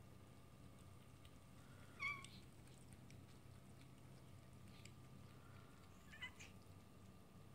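A cat meowing twice with short calls: a louder one about two seconds in and a softer one about four seconds later, over a faint low hum.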